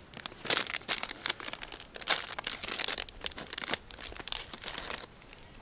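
Ration-pack biscuit packet crinkling and tearing in the hands as it is opened, in a run of irregular crackles that stops about five seconds in.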